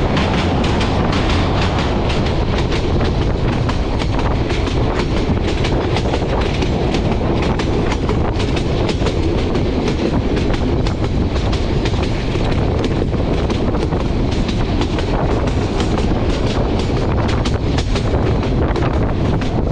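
Passenger train of INKA-built coaches running at speed: a loud, steady rolling rumble of steel wheels on rail, with dense, rapid clicking and clatter as the wheels cross rail joints.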